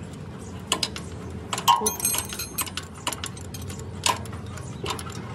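Metal tools and parts clinking and knocking against each other in a series of sharp taps, with one louder ringing metallic clank about two seconds in.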